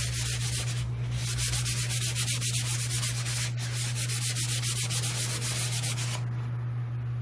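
Fine sandpaper (400 or 320 grit) rubbed by hand in quick back-and-forth strokes over a varnished MDF board, taking the roughness off the varnished surface. Short pause about a second in; the sanding stops about six seconds in, leaving a steady low hum underneath.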